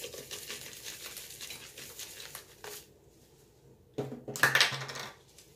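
Onion powder shaken from a plastic spice shaker over a slow cooker crock, a light hissy rattle of granules for a couple of seconds. About four seconds in come louder knocks and rustling as the next seasoning container is picked up and handled.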